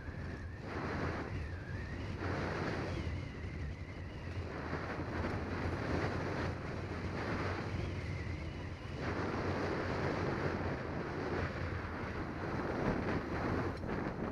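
Wind rushing over the microphone of a camera on a moving bicycle, a steady noise that swells and dips.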